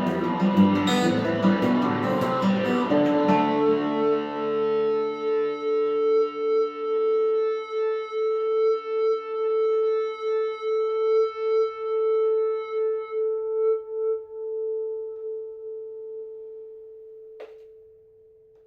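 Lâg HyVibe acoustic guitar played through its built-in effects: a few strummed chords, then a final chord left ringing, pulsing in volume at a slow even rate as it slowly fades out. A small click near the end, and a short knock as the ringing stops.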